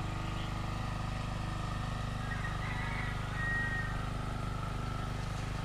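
A small engine idling steadily nearby: an even, unchanging low drone with a fine regular pulse.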